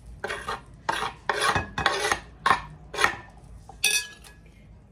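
Corn kernels being scraped off a wooden cutting board into a ceramic dish: a run of about seven quick scrapes over the first four seconds.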